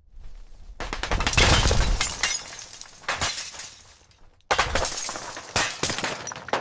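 Debris-fall sound effect: falling debris crashing and breaking, with a low rumble under the loudest part about a second and a half in. It dies down, then new crashes start suddenly about four and a half seconds in and again about a second later.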